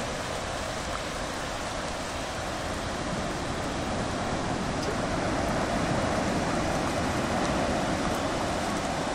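Ocean surf breaking offshore, a steady rushing wash that swells slightly a little past the middle.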